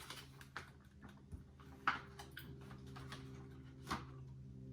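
A few light clicks and taps of a spoon and plate while eating, over a steady low hum.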